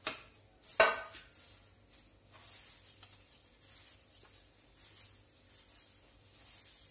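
A metal ladle clinks sharply against a steel kadai about a second in. Then comes a soft, pulsing hiss and rustle as crisp fried onion and other fried strands are turned over by hand in the pan.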